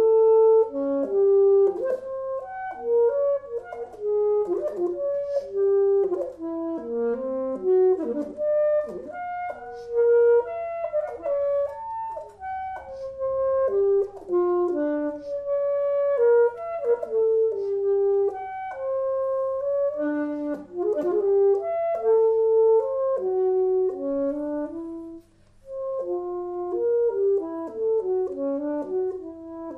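Solo saxophone playing a contemporary concert piece: quick runs of short notes leaping between low and high registers, with a brief break about 25 seconds in. A faint steady low hum runs underneath.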